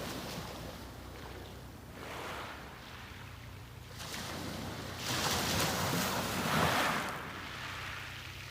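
Sea waves breaking and washing up a beach, swelling and fading every second or two; the biggest wash comes about five seconds in and lasts about two seconds.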